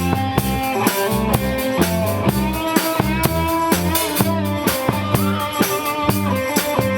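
A rock band playing an instrumental passage: guitar notes over a steady drum-kit beat with bass.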